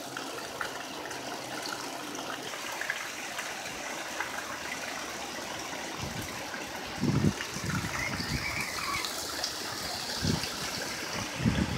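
Steady downpour of tropical-storm rain with gusting wind. From about six seconds in, wind gusts buffet the microphone several times in low rumbles.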